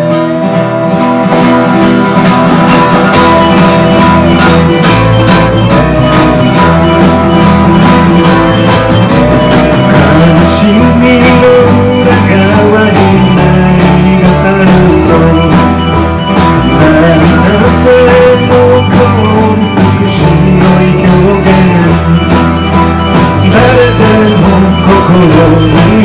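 Pop-rock band playing with a steady drum-kit beat, strummed acoustic guitars, electric guitars, electric bass and piano, with a melody line gliding between held notes.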